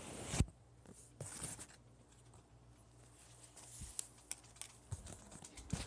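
Handling noise from a phone camera being moved about: a bump about half a second in, a brief rustle, then scattered light clicks and taps.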